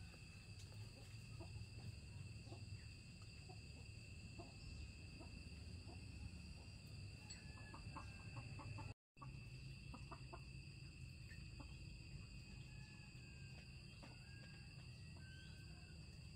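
Faint chickens clucking now and then over a steady, high-pitched insect drone, with a brief dropout in the sound about halfway through.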